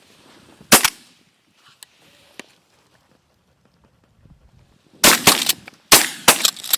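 Shotguns fired by several hunters at flying pigeons: one or two sharp shots about a second in, then a rapid string of about six shots near the end.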